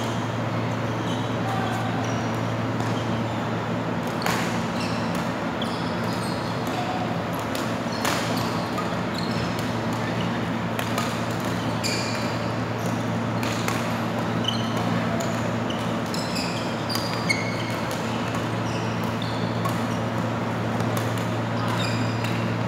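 Badminton rallies: sharp cracks of rackets hitting shuttlecocks at irregular intervals, mixed with short high squeaks of court shoes on the floor, over a steady low hum.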